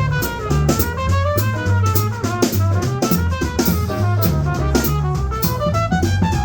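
Live small-group jazz, with the drum kit up front: cymbal and snare strokes and kick drum keeping a steady swing, over a moving bass line and a melodic line.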